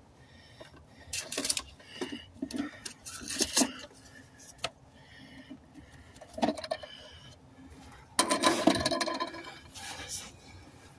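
Hand-handling noises from the new plastic fuel pump module and parts: scattered light clicks and knocks, then a louder rustling clatter lasting about a second and a half, two-thirds of the way through.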